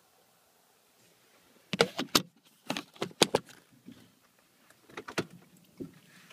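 Handling noise: a series of sharp clicks and knocks in quick clusters, from about two seconds in until near the end, with near quiet between.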